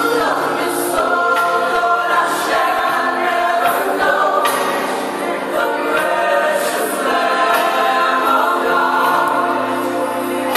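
Christian gospel-style song with choir singing over a steady beat, playing loud and unbroken.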